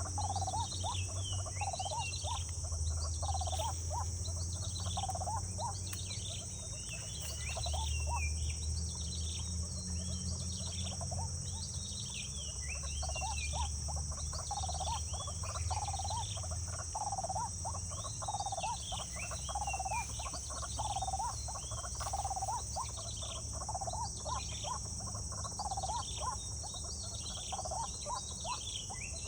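Outdoor wildlife chorus: a steady high-pitched insect drone, with short chirping calls repeating about twice a second over a low rumble.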